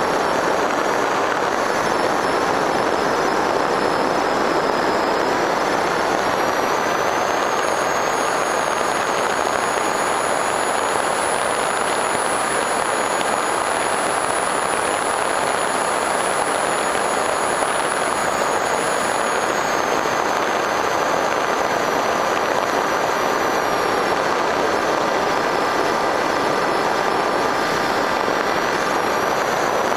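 FPV Raptor model plane in flight, heard through its onboard camera: steady rush of wind and propeller noise, with a high electric-motor whine that rises a little about seven seconds in and eases back down about twenty seconds in as the throttle changes.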